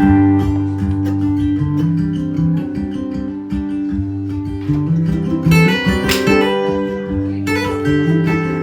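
Acoustic guitar playing a song's instrumental intro: strummed chords left ringing over a moving bass line, with a brighter flurry of strums about six seconds in.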